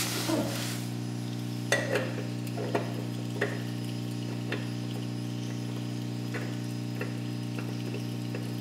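A spin-on oil filter being threaded onto its mount by hand: a few light clicks and scrapes, mostly in the first few seconds. Under them runs a steady electrical hum, the loudest thing throughout.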